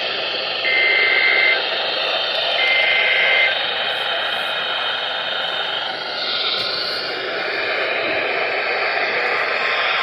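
Emergency Alert System SAME header data bursts received on a radio: two short bursts of buzzing two-tone digital data about a second apart in the first few seconds. After them the radio gives only steady static hiss.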